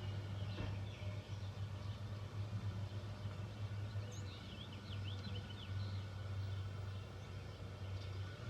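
Small birds chirping, a quick run of short high calls about halfway through, over a steady low hum.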